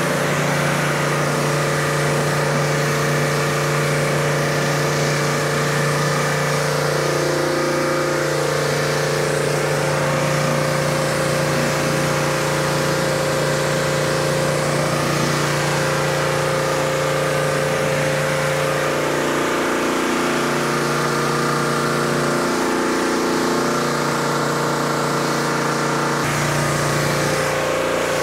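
Gas-engine pressure washer running steadily under load, with the hiss of the single-nozzle wand's water jet blasting loosened dirt off the concrete. The engine note wavers slightly now and then.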